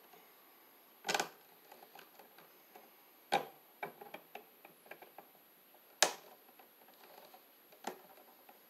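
Hand wire cutters clicking and snipping on electrical wires: four sharp clicks, about one, three and a half and six seconds in and near the end, with lighter ticks of the tool and wires in between.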